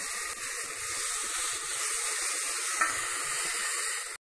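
Spiced onion and ginger-garlic paste sizzling steadily in hot oil in a pressure cooker pan while a steel spoon stirs it, with one short clink of the spoon a little under three seconds in. The masala is being fried until its raw smell is gone.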